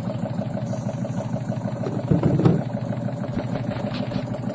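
Jensen #50 model steam engine running under steam at an even, rapid beat, with a brief louder burst of noise about two seconds in.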